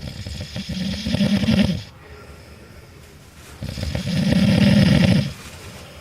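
A man snoring in his sleep: two loud, fluttering snores, one at the start and one about halfway through, each lasting under two seconds, with quiet breathing between.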